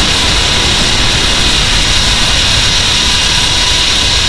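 Edited King Ghidorah monster sound effect: a loud, steady, jet-like rushing noise with a faint high steady tone through it.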